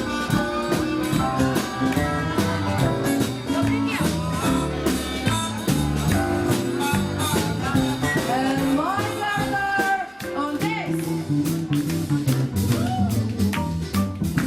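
Instrumental passage of a song: a melody line over guitar-led accompaniment with a steady beat.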